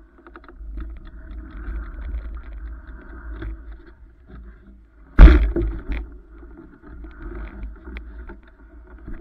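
Low rumble and rattling from a body-worn action camera as it is carried, with one loud thump about five seconds in and a couple of lighter knocks just after.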